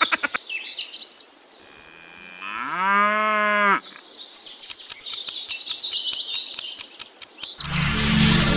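A cow mooing once, a long call that rises in pitch and then holds, about two and a half seconds in, amid high bird-like chirping and a steady high trill. Music starts near the end.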